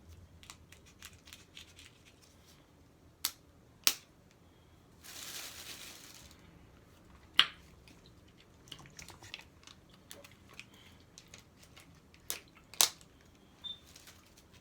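Close-up eating sounds: scattered sharp clicks and crunches while eating a taco and beans, with a soft rustle lasting about a second around five seconds in.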